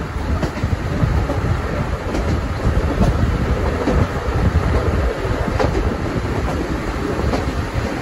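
Locomotive-hauled train of 12-series passenger coaches running: a steady rumble with a few faint, irregular clicks of wheels over the rails.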